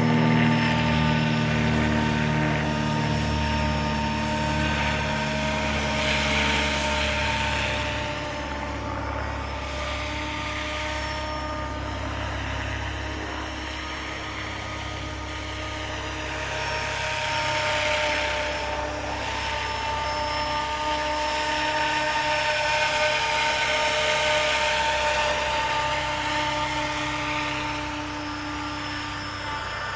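Radio-controlled 500-size scale MBB Bo 105 helicopter with a four-blade main rotor in flight: a steady whine from the rotor and drive with a noisy rushing underneath, growing louder and fainter several times as it flies nearer and farther.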